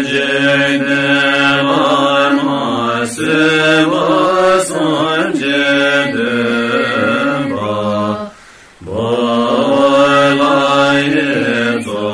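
A Buddhist mantra chanted in a steady melodic voice over a low held drone, with a short break for breath about eight seconds in.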